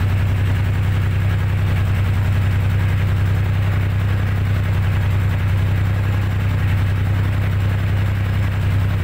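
A lifeboat's diesel engine running steadily with a low, even hum. It keeps running after being started on a newly fitted battery.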